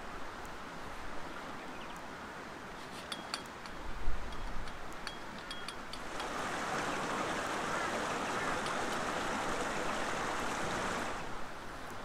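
A few light metallic clicks and a dull thump about four seconds in, as a tarp pole is stood up under a canvas tarp. Then a creek runs with a steady rushing sound for about five seconds, cutting off near the end.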